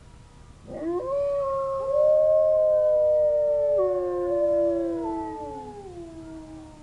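Wolves howling together: several long, overlapping howls at different pitches rise in about a second in, hold, then slide lower and fade near the end. It is a chorus set off by distant sirens.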